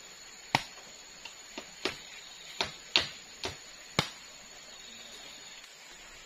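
About eight sharp, irregular knocks of bamboo on bamboo as sugar palm leaf thatch panels on bamboo slats are worked into place on a bamboo roof frame. The knocks stop after about four seconds.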